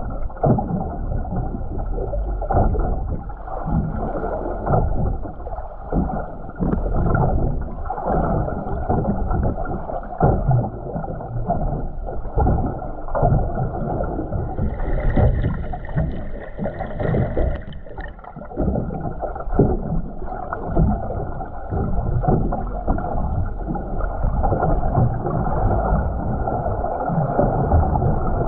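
Muffled underwater water noise from a submerged camera: a constant low, dull rushing and sloshing of seawater around the housing, with irregular surges. Just past the middle, a faint higher-pitched tone sounds for about three seconds.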